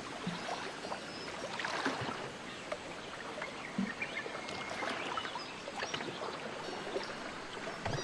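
Wind blowing in a steady rush with brief swells and rustles, and faint high bird chirps now and then.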